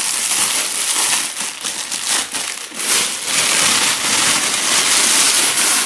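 Thin clear plastic packaging bag crinkling and rustling continuously as it is pulled open and slid off a folded tripod, with a few sharper crackles and a fuller, steadier rustle in the second half.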